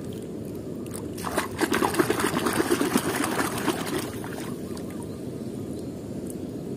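Water sloshing and splashing in a plastic tub as a toy is swished and dunked through it by hand. The splashing is busiest and loudest from about a second in to about four seconds in, then settles to a softer slosh.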